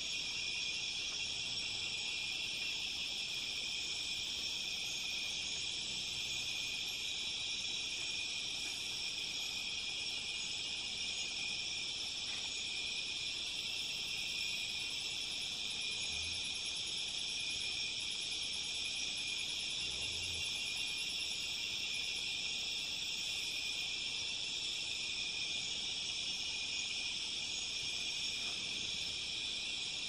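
Amazon rainforest night chorus of insects: a dense, steady, high-pitched trilling and buzzing from many callers at once, with fainter, higher thin tones coming and going on top.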